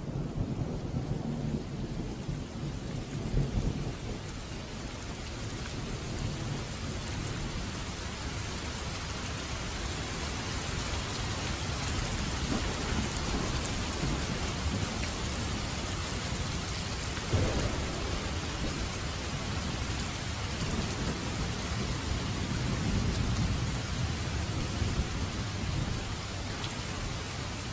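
Steady heavy rain with thunder rumbling low in the first few seconds and again later, and a sudden louder thunder burst about two-thirds of the way through.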